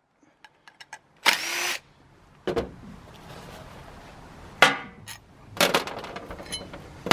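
Cordless impact driver run in a few short bursts to back out the bolts of a Leslie RS5T horn's power chamber. Sharp metallic knocks fall in between.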